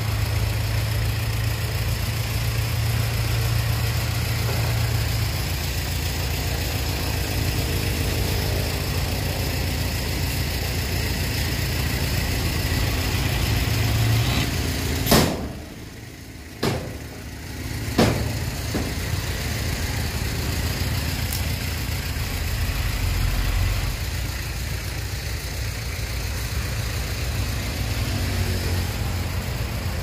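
Hyundai dump truck's diesel engine running steadily while the truck tips its bed to dump a load of soil. About halfway the engine sound drops away for a moment, with a few sharp clicks, then comes back.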